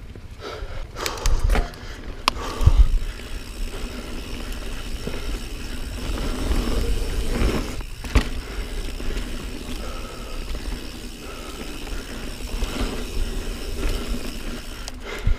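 Niner Jet 9 RDO mountain bike rolling fast over a sandy dirt singletrack: steady tyre and rolling noise, with a few sharp knocks and rattles of the bike over bumps about a second and a half in, near three seconds, and about eight seconds in.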